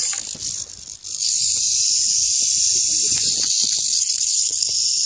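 Western diamondback rattlesnake rattling its tail: a steady, high buzz that drops out briefly about a second in and then resumes. It is the snake's defensive warning while it is held pinned.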